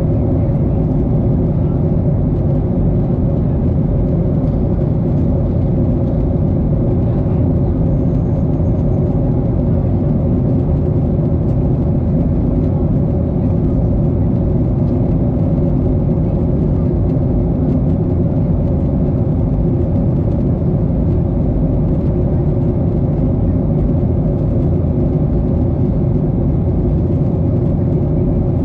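Steady cabin noise of a Boeing 737-800 in flight, heard from a window seat: a continuous low roar of its CFM56 jet engines and the air rushing past the fuselage, with a steady low hum underneath.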